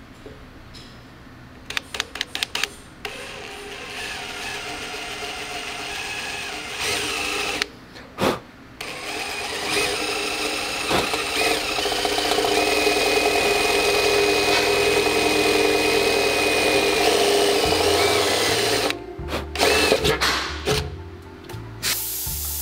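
Cordless drill boring holes through a painted steel motorcycle rear fender. It gives a few short trigger bursts about two seconds in, then runs steadily for several seconds, then stops and starts again in short bursts near the end.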